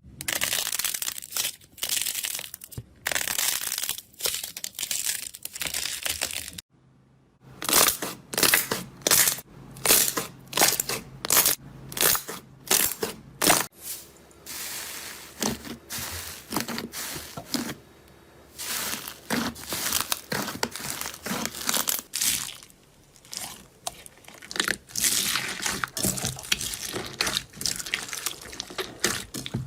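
Slime being squeezed, pressed and stretched by hand in a run of short clips, with crackling, crunchy squishes. In the middle stretch the presses come at an even rhythm of about two a second, and a brief pause about seven seconds in marks a cut between clips.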